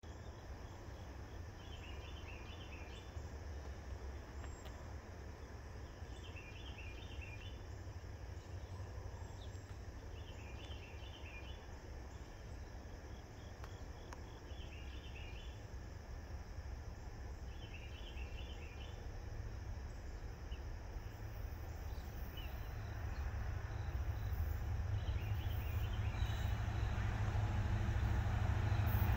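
Outdoor ambience with a steady low rumble and a short chirping call repeating about every four seconds; over the last several seconds the rumble grows steadily louder as the freight train approaches.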